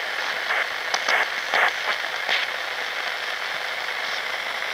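Shortwave static hissing from a Sangean portable radio's speaker as it is tuned up through around 14 MHz between stations, with a few short crackles in the first couple of seconds.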